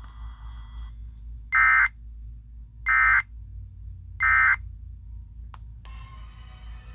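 Emergency Alert System end-of-message data tones: three identical short, loud bursts of two-tone digital screech, about a second and a quarter apart, marking the end of the severe thunderstorm warning broadcast. A click follows near the end.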